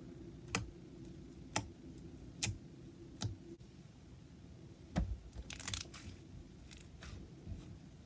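Red jelly slime being poked and pressed by fingers, making sharp pops about once a second. A brief squelch comes about five and a half seconds in, and a few softer pops come near the end, over a faint steady low hum.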